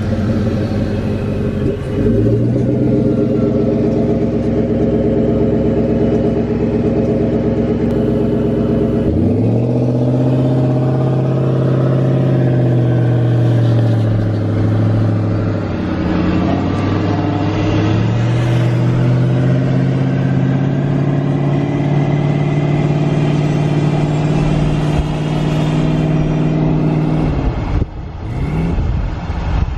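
A car engine held at steady revs. Its pitch climbs about nine seconds in, sags and climbs again in the middle, then falls off near the end.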